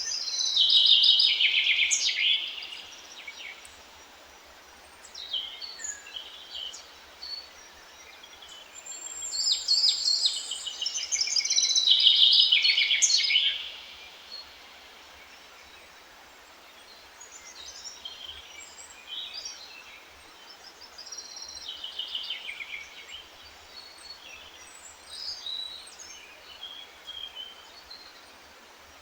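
Songbirds singing: two loud song phrases of a few seconds each in the first half, then fainter, scattered calls, over a faint steady hiss.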